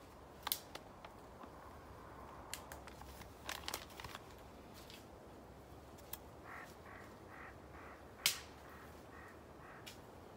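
Scattered clicks and short rustles of a paper packet and camp cookware being handled, the loudest a single sharp click about eight seconds in.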